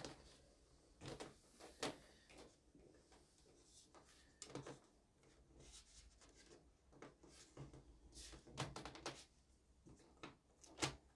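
Faint, scattered clicks, taps and rustles of hands handling the foam fuselage and clear canopy of a large model jet, with a cluster of sharper knocks about eight to nine seconds in.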